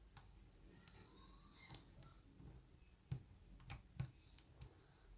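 Faint, irregular clicks of lock picking tools working inside a Bilock oval padlock. The sharper clicks come in the second half.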